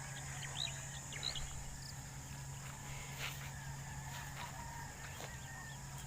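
Rural outdoor ambience: insects buzzing steadily, with a few short bird chirps in the first second or two, over a steady low hum.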